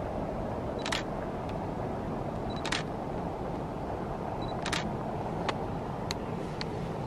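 A DSLR camera's shutter fires three times, about two seconds apart, each just after a short high focus-confirm beep; a few fainter clicks follow near the end. Under it runs a steady rushing background noise.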